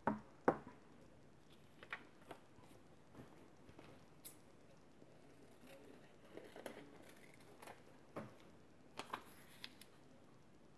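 Two sharp clicks close together, as magnets snap onto the metal plate of a stamp-positioning tool to hold a card down. After them come scattered light taps and paper rustles as card stock is handled.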